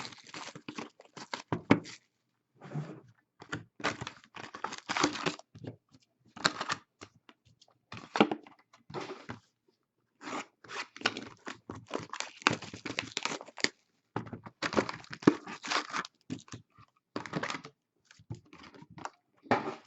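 Trading-card packaging being torn open and crinkled: irregular bursts of tearing and crumpling wrapper, with short pauses between.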